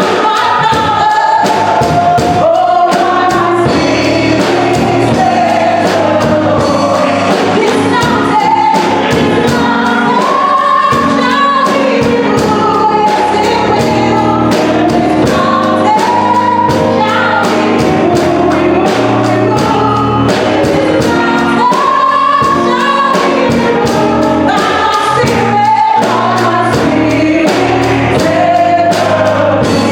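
Congregational gospel worship song: a worship leader and congregation singing with a live band keeping a steady beat.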